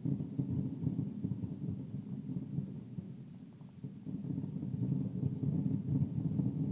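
Fireworks aerial shells bursting in rapid, overlapping succession: a continuous low, muffled rumble of booms. It eases a little around the middle and builds again toward the end.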